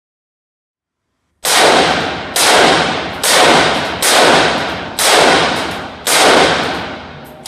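AK-pattern rifle firing six single shots, about one a second, starting about a second and a half in. Each shot echoes and dies away in the indoor range before the next.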